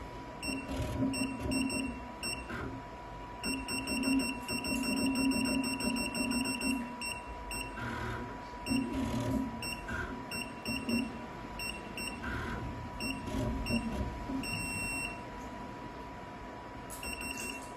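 Programmable pattern sewing machine's control panel beeping as its keys are pressed: many short beeps and several held for a second or more while a direction key is kept down, each long run joined by a low hum as the frame is jogged from point to point.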